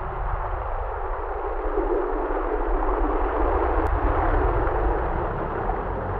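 Simulated thunderstorm: a steady rain-like hiss over a low, continuous rumble of thunder.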